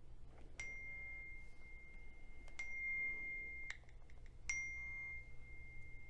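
Faint sharp clicks, about four in all, each followed by a steady high ringing tone that holds for a second or two until the next click.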